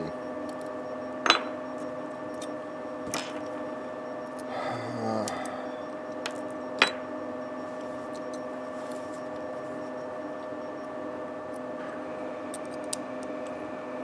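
Steady hum of a heating furnace running, with several constant tones in it. Over it, a few sharp clicks of small metal connector parts being handled on the bench, the two loudest about a second in and near the middle.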